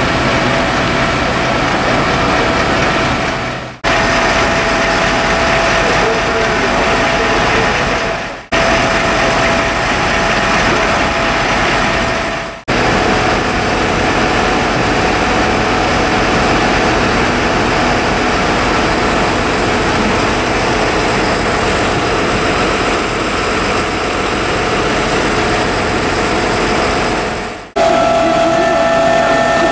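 Fire trucks' diesel engines running steadily at high revs, driving their pumps, with a faint steady whine on top. The sound fades out briefly and comes back about four times.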